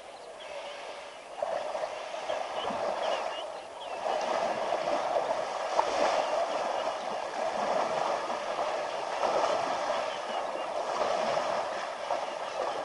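African elephant wading through a shallow river, its legs splashing and sloshing the water. The splashing gets louder about four seconds in as it strides towards the bank.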